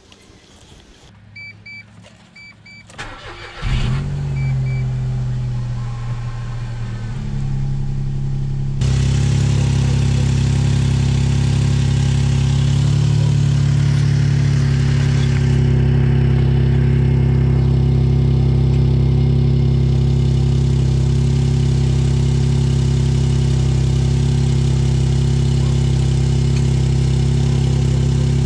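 Mitsubishi Colt 1.1i's three-cylinder petrol engine starting about four seconds in, after a few short electronic beeps, then idling steadily, heard from under the car and louder from about nine seconds in. The exhaust is leaking at the clamped joint of the newly fitted center pipe, which doesn't seal at all.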